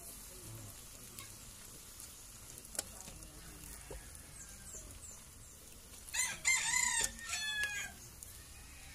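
A rooster crows once, a loud drawn-out call starting about six seconds in. Underneath, string beans frying in a wok sizzle faintly and a metal spatula clicks against the pan as they are stirred.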